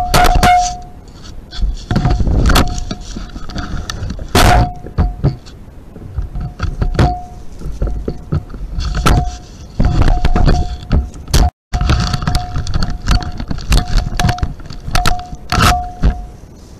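Irregular loud knocks, scrapes and clatters of a trail camera's housing being bumped and handled right at the microphone, several of them with a brief ringing tone. The knocking comes in clusters for the whole stretch, with one sudden dropout about two-thirds of the way through.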